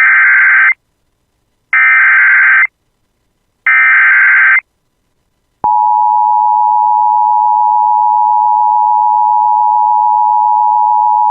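Emergency Alert System SAME header: three loud bursts of screeching digital data tones, each about a second long and about a second apart, carrying the severe thunderstorm warning code. A little past halfway, the steady two-tone EAS attention signal starts and holds.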